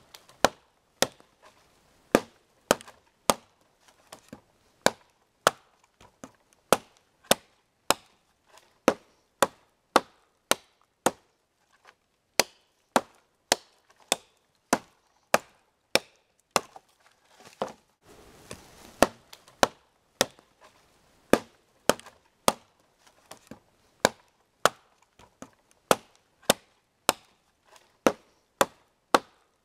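Wetterlings large hunting axe chopping into a dry, barkless pole: a steady rhythm of sharp strikes, a little under two a second. There is a brief pause with rustling about two-thirds of the way through before the strikes resume.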